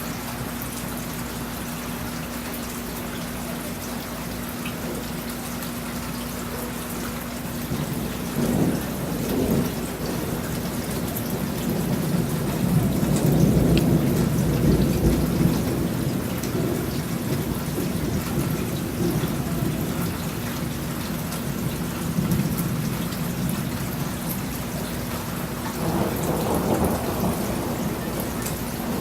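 Steady rain with thunder rumbling: a short rumble about eight seconds in, a longer, louder one a few seconds later, and another near the end.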